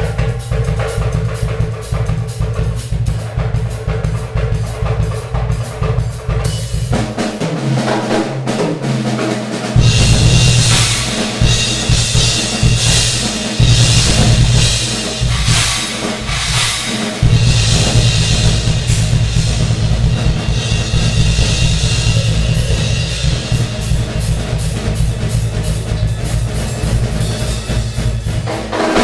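Drum kit solo improvisation: rapid bass drum strokes under the snare, a short fill down the toms about seven seconds in, then crashing cymbals over continuous fast bass drum from about ten seconds on.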